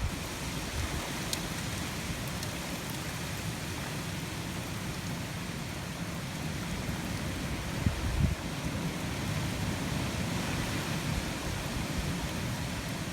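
Steady heavy rain falling during a squall line, with gusts of wind buffeting the microphone, the strongest about eight seconds in.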